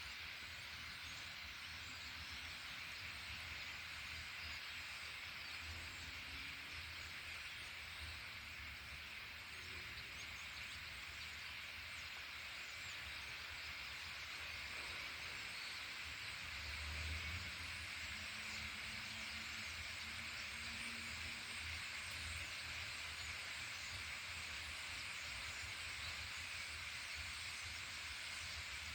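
A large flock of birds chattering together in one dense, faint, steady chorus, with low wind rumble on the microphone.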